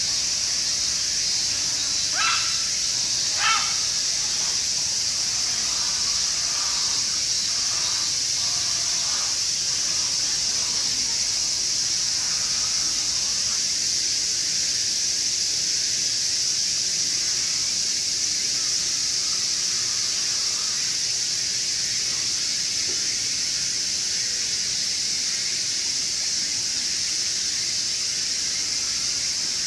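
Two short high calls from Japanese macaques, about two and three and a half seconds in, with a few fainter calls over the next several seconds, over a steady high-pitched hiss.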